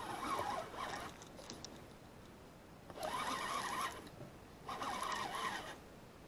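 Abu Garcia 6500 C3 baitcasting reel being cranked in three short bursts of about a second each, its gears whirring as line is wound in with a small fish on.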